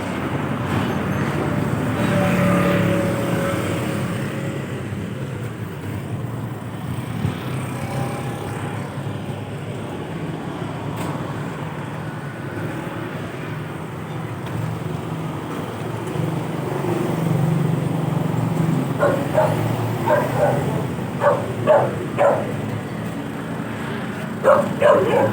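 Street traffic rumbling steadily as cars pass. A dog barks in short, sharp bursts several times near the end.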